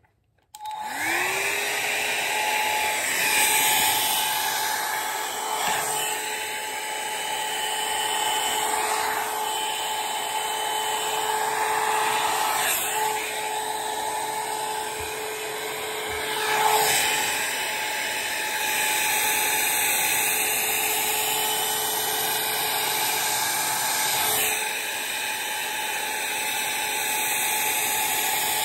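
Hand-held hair dryer switched on about half a second in, its motor whining up to speed and then running steadily with a rush of air that swells and dips in loudness.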